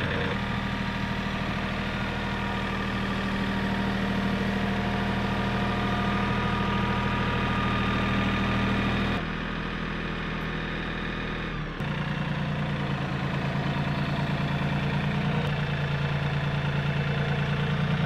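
Compact tractor engine running steadily while the tractor carries a load of boards on its front loader forks. The sound drops abruptly about nine seconds in and comes back about three seconds later.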